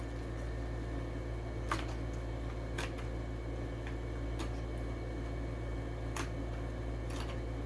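A few scattered sharp clicks and crackles of a plastic blister pack on a toy-car card being handled and pried open, over a steady low hum.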